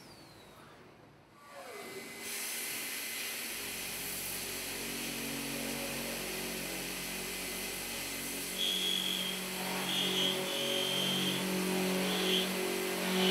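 Voortman V310 milling spindle cutting steel plate with an end mill: a steady hiss with a low hum, starting about two seconds in, and a high whine that comes and goes over the last few seconds.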